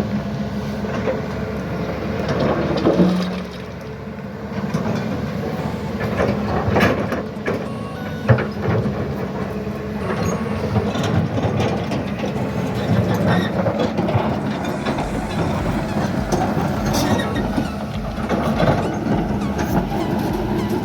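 Hyundai 210 excavator's diesel engine running steadily, with scattered clanks and knocks of the machine working throughout.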